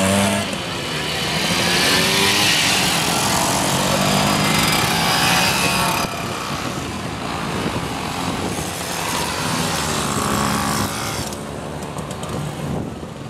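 Small two-stroke mopeds riding off one after another, engines running and pulling away. The loudest pass comes in the first half, another moped passes about ten seconds in, and the sound drops near the end.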